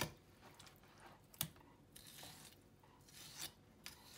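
Faint knife work on a porgy: a fillet knife's blade run along the rib cage, peeling the meat off the bones, with a few short clicks.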